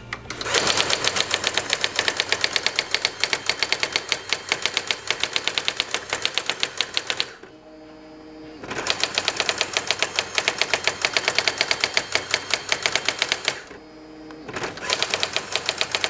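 Brother ZX-30 electronic typewriter printing with its daisy wheel on its built-in demo: fast, even hammer strikes about ten a second, in three runs broken twice by a short pause filled with a low motor hum.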